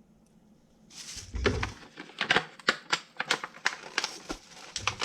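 Small plastic items being handled: a quick irregular run of sharp clicks and clatters starting about a second in, with a couple of dull knocks.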